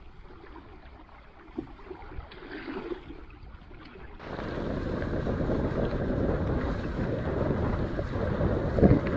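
Quiet water sounds with a few small splashes, then, from about four seconds in, steady wind buffeting the microphone over rushing water as the catamaran sails, with a louder gust near the end.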